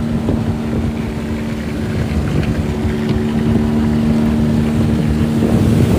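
A small boat's outboard motor running at a steady, even pitch while the boat travels, with wind noise on the microphone.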